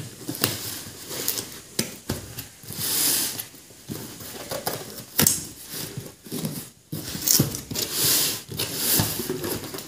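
Large steel shears cutting through packing tape on a cardboard shipping box. Irregular snips, clicks and scrapes, with a few longer bursts of crackling tape and cardboard.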